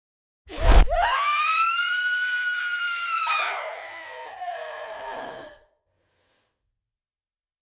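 Horror jump-scare sound effect: a sudden hit, then a high, shrill ghostly shriek that rises and holds, breaks into a rougher, lower wail and fades out.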